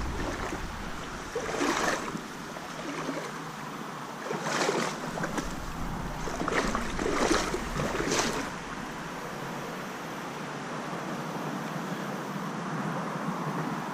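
Boots splashing through shallow creek water in a handful of wading steps, over the steady rush of the flowing stream. The steps fall in the first two-thirds, then only the water continues.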